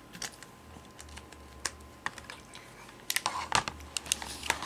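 Scattered light clicks and taps from handling a soldering gun, solder and wire while tinning the wire, bunching up about three seconds in.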